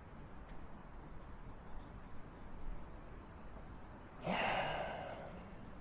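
A man sighs once, a breath out of about a second, about four seconds in, after a few seconds of faint background hiss.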